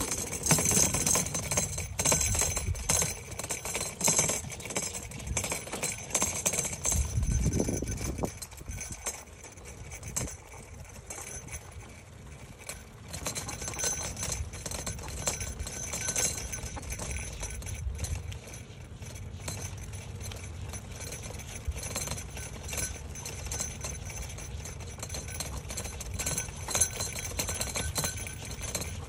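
Bicycle with a dog sidecar rolling along: the frame and sidecar rattle and click over the road surface, over a low rumble of tyre and wind noise.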